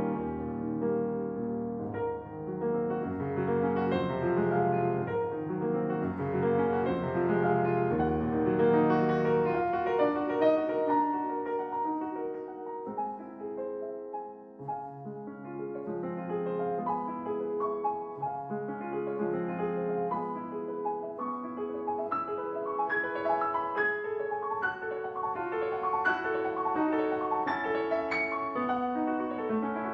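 Background piano music, gentle and classical in style, played over the time-lapse.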